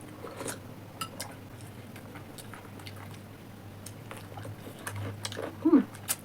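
Light clinks of cutlery against plates and bowls, scattered and irregular, with soft chewing while momos are eaten.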